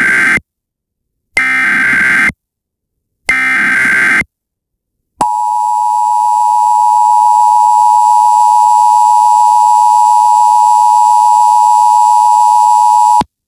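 Emergency Alert System header: three short bursts of SAME digital data tones, each about a second long with a second's gap between them, followed by the two-tone EAS attention signal held steady for about eight seconds before cutting off. Together they mark the start of an emergency alert broadcast.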